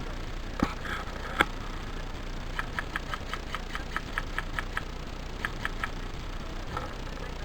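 Airsoft gun shots: two separate sharp cracks, then a quick string of single shots at about four or five a second and three more after a short pause, over a steady low rumble.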